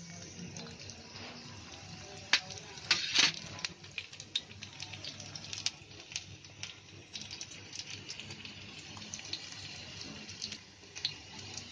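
Finely chopped garlic sizzling in hot oil in a cast-iron pan: a steady hiss with scattered crackles, and a few louder clicks about two to three seconds in.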